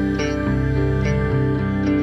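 Instrumental background music, its notes changing about every half second.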